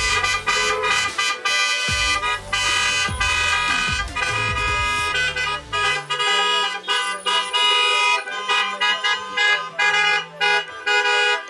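Several car horns honking at once, overlapping long and short blasts, as a line of cars drives slowly past, with a low vehicle rumble in the first few seconds.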